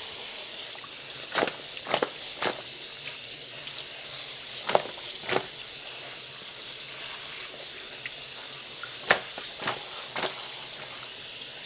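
Kitchen faucet running in a steady stream into a stainless steel bowl of eggplant slices as they are rinsed of their salt water. Scattered through it are a few sharp clinks and knocks from the bowl and slices being handled in the sink.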